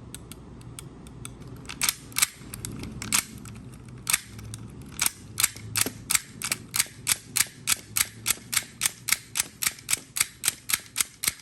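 Marks 22AC3 mortise lock being worked by hand again and again: sharp metallic clicks, a few scattered at first, then a steady run of about three a second, as the mechanism snaps back under its new spring of windshield wiper blade steel.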